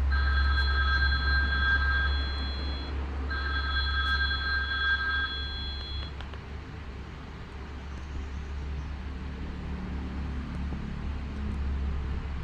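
Strawberry ST77 mobile phone playing an electronic telephone-ring ringtone through its speaker: two long bursts of a high, steady two-pitch ring with a short gap between them, stopping about six seconds in. A steady low hum runs underneath.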